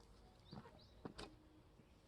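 Near silence with a few faint, short bird chirps, about half a second and a second in.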